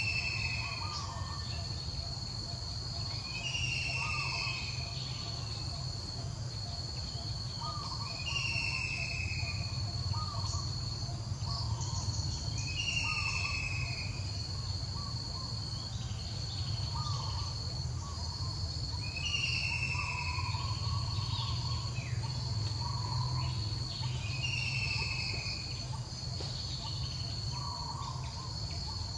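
Forest ambience: a steady high insect drone, with a bird repeating a short falling whistle every few seconds and softer lower calls in between, over a low rumble.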